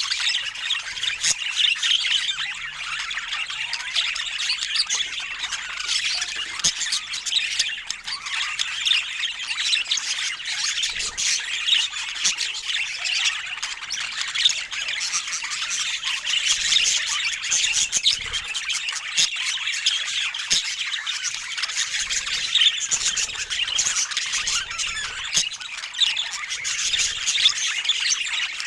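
Budgerigars chattering: a dense, unbroken stream of high warbling chirps and calls.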